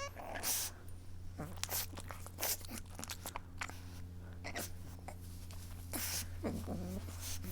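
Pug whimpering: a few short, high whines that bend in pitch, broken up by quick breathy sniffs, over a steady low hum.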